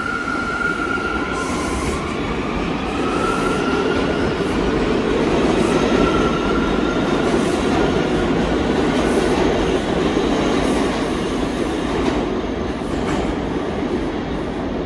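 New York City subway train running on the rails: a steady low rumble of wheels, loudest in the middle, with high-pitched wheel squeal that wavers and fades over the first half, and a few sharp clicks from rail joints near the end.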